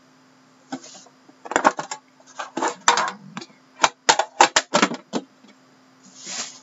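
Handling of a hockey card box and its cardboard packaging being opened: a quick run of sharp clicks, taps and rustles, then a softer swish near the end, over a faint steady hum.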